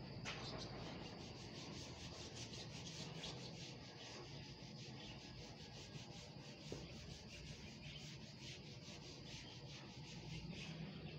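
An eraser rubbing over a whiteboard to wipe off marker writing, in quick repeated strokes, several a second.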